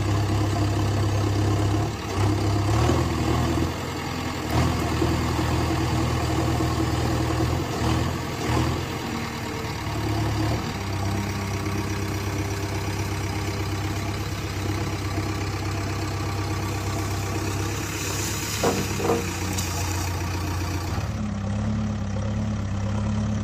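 Engine idling with a steady low hum; a few short louder bumps rise above it, and two brief knocks come close together a few seconds before the end.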